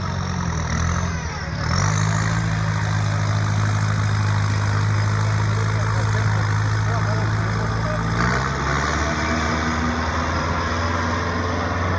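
Off-road trial vehicle's engine running under load at steady, held revs as it pulls through deep mud. The revs step up and get louder about two seconds in and ease off about eight seconds in, with a faint high whine rising over it near the end.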